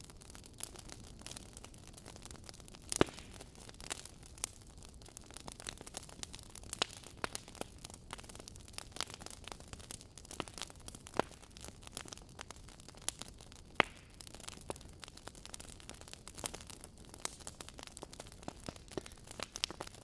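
Wood fire crackling in a fireplace: irregular sharp pops and snaps over a faint low rumble, with two louder pops about three seconds in and near the middle.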